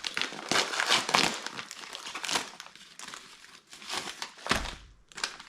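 Packaging crinkling and rustling as a package is handled and opened, with a dull thump a little before the end.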